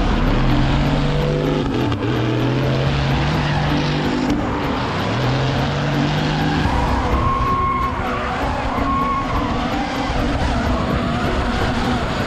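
Drift cars running hard: engines revving in steps over the rush of tyres, with wavering tyre squeal over the second half.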